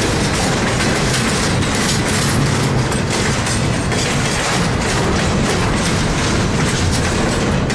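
Loaded double-stack intermodal well cars rolling past close by: a loud, steady rumble of steel wheels on rail, run through with irregular clicks and knocks.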